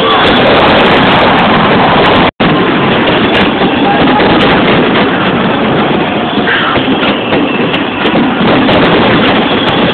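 Dense fireworks barrage, a continuous loud rumble and crackle of many shells bursting together, overloading the microphone so that no single bang stands out. The sound drops out for an instant a little over two seconds in.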